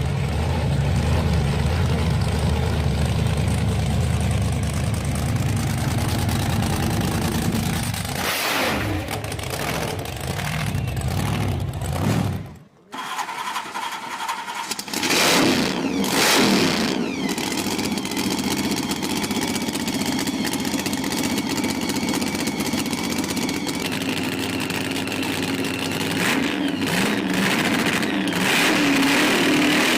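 Muscle car engine running with a deep, steady rumble, then after a sudden brief drop, a different engine note comes in and is revved up and back down a few times.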